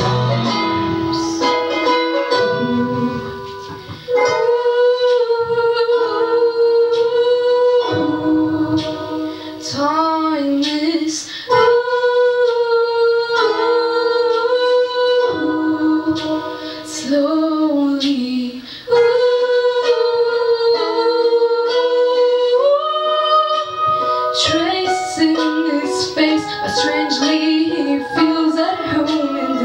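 A female voice singing a melody of long held notes in phrases of a few seconds each, over a plucked-string accompaniment.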